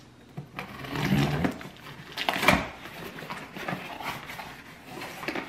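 Kitchen knife slicing through packing tape on a cardboard box, with irregular scraping and rustling of the cardboard and a sharp knock about two and a half seconds in.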